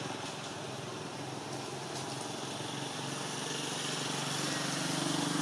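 A motor engine running steadily, its hum growing louder toward the end.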